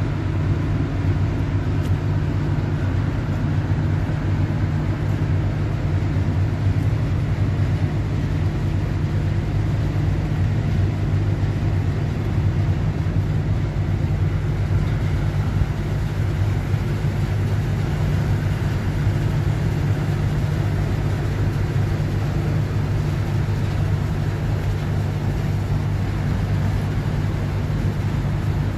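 Engines of a large wellboat running close by, a steady low hum.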